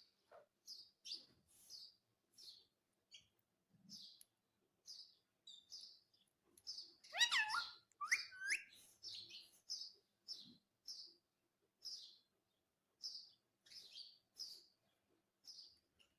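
Indian ringneck parakeet chirping: a string of short, high chirps about one a second, with one louder, longer call around the middle.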